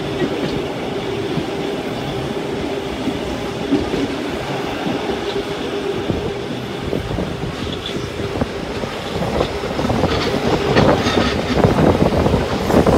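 Rhaetian Railway train running on its rails, heard from aboard at an open window as it rounds a bend: a steady rumble of wheels on track. It grows louder, with more clatter, in the last few seconds.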